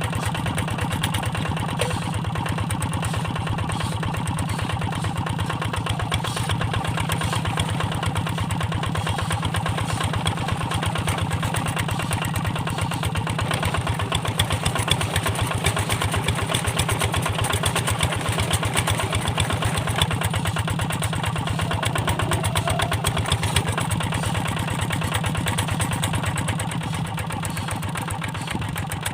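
Kubota Quick G1000 hand tractor's single-cylinder diesel engine running steadily with an even chugging beat, the machine stuck in deep paddy mud. It eases off slightly near the end.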